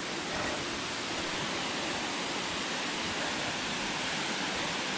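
Steady rush of a waterfall: falling water hissing evenly without a break.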